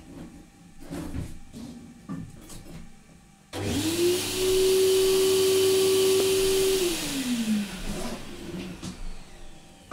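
A few light knocks and clinks of hands on metal, then about three and a half seconds in an electric motor starts with a quickly rising hum. It runs steadily with a hiss for about three seconds, then is switched off, its hum falling in pitch as it winds down.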